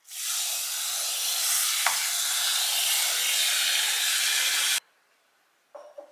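Espresso machine steam wand hissing steadily, starting and cutting off abruptly, with a light knock about two seconds in.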